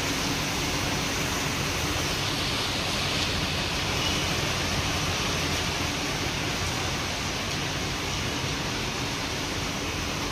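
Steady rain falling on a paved courtyard and pool, an even hiss with a faint low hum beneath it.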